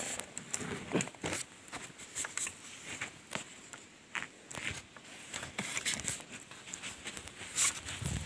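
Irregular knocks, scrapes and rustling of a climber stepping down a bamboo tree ladder (sigai) lashed to a tall trunk, with clothing rubbing against the camera. The loudest knock comes near the end.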